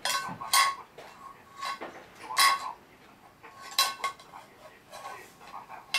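A metal spoon and a spatula clinking against the inside of a small saucepan, stirred and banged in play: about half a dozen sharp, irregularly spaced clinks, each with a short ring.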